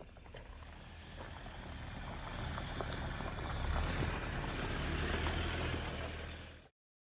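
Jeep Wrangler driving on a bumpy dirt trail: a low engine drone under tyre and road noise, with scattered knocks and rattles. It grows louder, then cuts off abruptly near the end.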